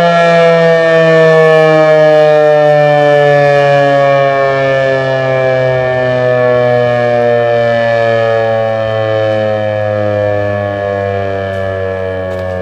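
American Signal T-128 rotating outdoor warning siren winding down after its test blast: a loud tone with many overtones, sliding slowly and steadily down in pitch as it fades.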